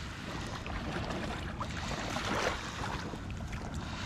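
Steady wind and river-water noise, with faint rustling and small knocks from hands working a fish free of a landing net lying on dry reeds.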